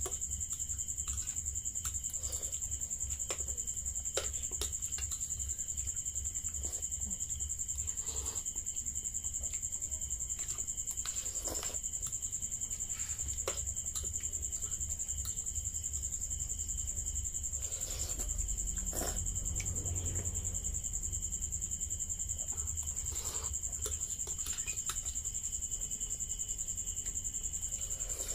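Crickets chirring in a steady high-pitched drone, with scattered clicks of metal forks against ceramic plates and a low hum underneath.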